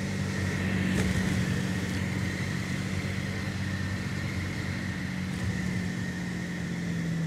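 Hawker Hurricane's Rolls-Royce Merlin V12 engine running at low power with a steady, even note as the fighter floats just above the runway in the landing flare.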